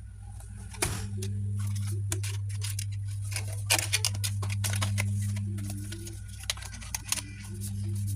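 Scattered light clicks and taps over a steady low hum, with a cluster of quick clicks a few seconds in.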